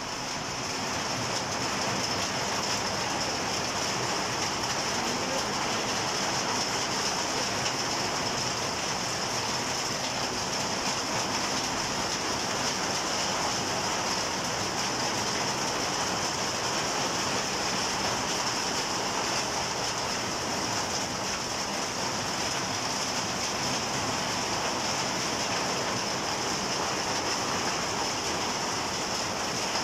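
Heavy rain pouring down, a dense, even hiss that swells up within the first second and then holds steady without a break.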